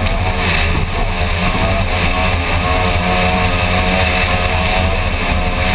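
Racing powerboat's outboard engine running hard at speed, heard from a camera mounted on the boat, with heavy wind and spray noise. The engine note holds steady with a slight waver.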